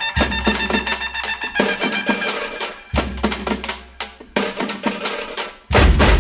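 Music with drums and percussion, with deep bass hits about every three seconds and the loudest hit near the end.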